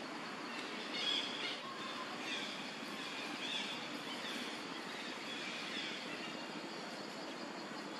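Steady outdoor background noise, with short high chirps scattered through the first six seconds.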